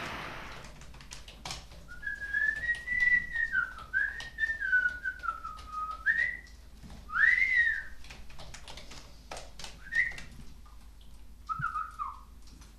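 Someone whistling a meandering tune in short, gliding phrases, with scattered light clicks and taps around it.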